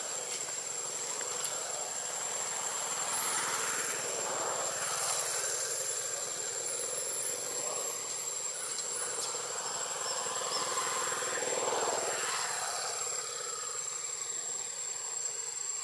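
Outdoor ambience: a steady high insect whine with a distant engine drone that swells and fades twice, and a few faint high bird chirps.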